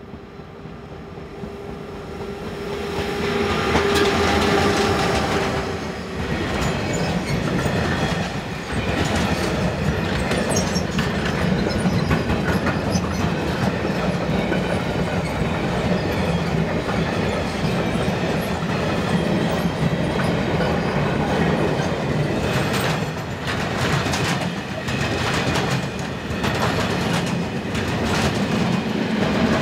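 Electric freight train approaching and passing: it grows louder over the first four seconds or so, with a steady tone until about six seconds in. Then a long string of freight wagons rolls by with a continuous rumble, and the wheels clatter over the rail joints in clusters.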